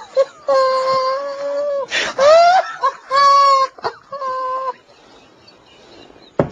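A man's stifled, high-pitched laughter held back behind his hand, coming out as four long squealing whines, one sliding upward in pitch. It dies away a little under five seconds in, and there is a single sharp knock near the end.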